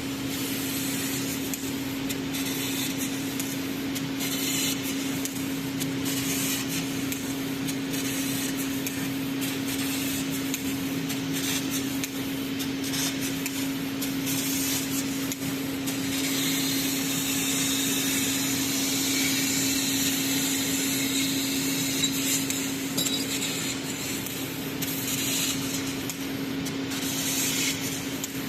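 CNC fiber laser cutting a metal plate: a steady hiss of assist gas with crackling at the cut, swelling and easing as the head moves, over a constant machine hum.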